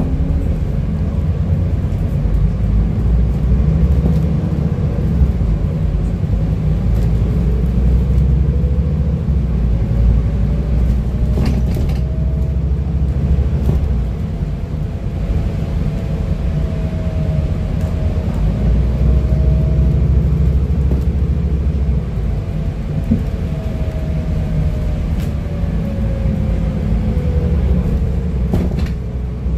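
Scania N250UD double-decker bus on the move, heard from the upper deck: a steady low rumble of its five-cylinder diesel and the road, with a faint whine that climbs in pitch as the bus gathers speed and later falls away as it slows. There are a couple of brief knocks from the body.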